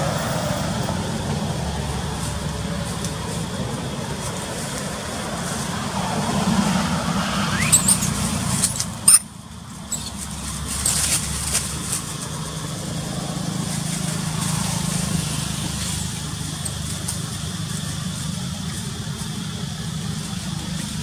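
Steady low rumble of a motor vehicle engine, with a few sharp clicks and a short rising squeal between about seven and nine seconds in.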